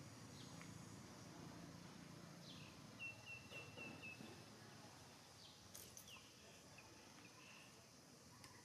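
Near-silent outdoor background with faint bird chirps: a quick run of about five short notes a few seconds in, then a few more short falling chirps.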